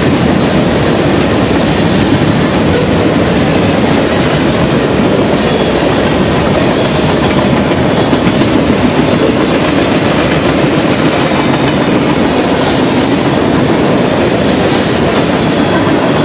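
Freight cars of a BNSF manifest train rolling past, steel wheels running on the rails, loud and steady.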